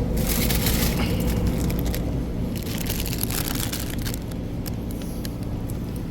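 Crinkling and rustling, like plastic being handled, in two spells of about a second each, over a steady low hum of the store's air handling.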